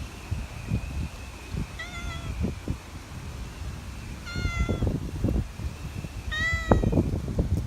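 An animal giving three short mewing calls, a couple of seconds apart, over low wind rumble on the microphone.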